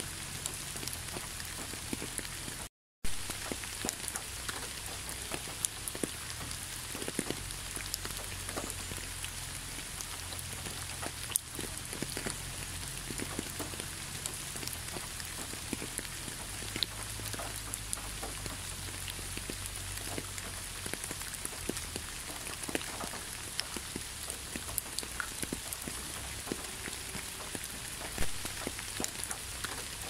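Steady rain falling, with many separate drops heard as small clicks over an even hiss. The sound cuts out completely for a moment about three seconds in, then comes back with a sharp click.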